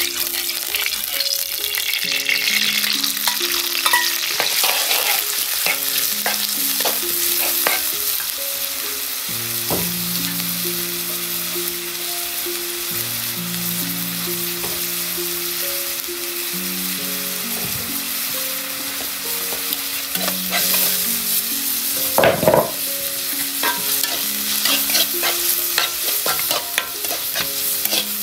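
Shallots, chili and chicken pieces sizzling in hot oil in a wok as they are stir-fried, the metal wok ladle scraping and clinking against the pan. A louder burst of sizzling comes about three quarters of the way through.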